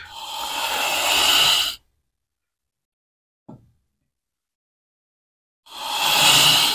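Steel plane iron held in a honing guide, scraped along a King waterstone in two long strokes, one at the start and one near the end, with a faint tap in between. This is the honing of a microbevel (secondary bevel) on the Lie-Nielsen No. 5 jack plane's blade.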